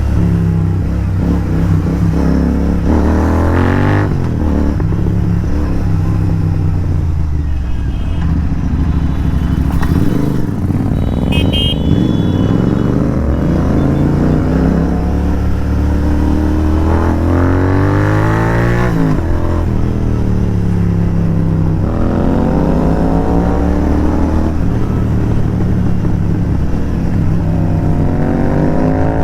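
Royal Enfield Continental GT 650's parallel-twin engine breathing through an aftermarket AEW TE101 exhaust while being ridden: the engine note climbs in pitch as it pulls through the gears and drops back between them, several times over.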